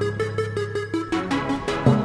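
Electronic background music: a quick run of short synth notes over a steady held bass note, with a heavy hit right at the end.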